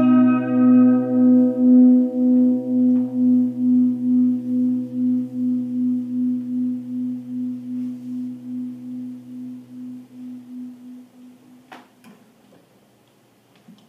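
A single held musical note rings on and slowly fades away over about eleven seconds, wavering in a slow, regular pulse. A sharp click comes near the end.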